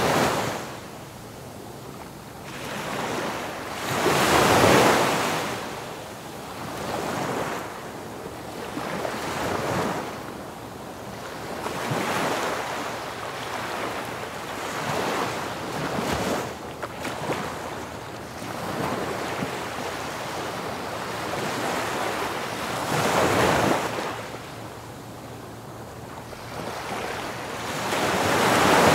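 Sea surf: waves washing and breaking in slow surges that swell and fade, the strongest a few seconds in and near the end, with wind on the microphone.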